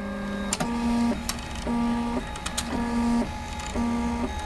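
Printrbot 3D printer's stepper motors whining as the print head moves back and forth, the pitch switching between two tones about every half second. A few light clicks come through.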